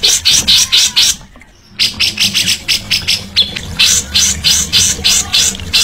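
Songbird giving a fast run of short, harsh, rasping notes, about four or five a second, with a brief pause a little over a second in.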